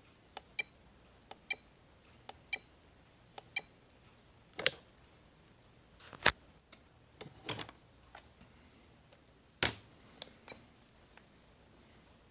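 Light clicks in pairs, about one pair a second, each with a faint ring, then a few louder, sharp knocks of hard objects being handled.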